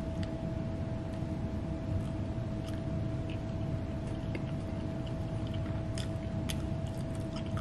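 Two people chewing pieces of squid in ink, with faint scattered wet mouth clicks from about two and a half seconds in. Under it runs a steady low room rumble with a constant hum tone.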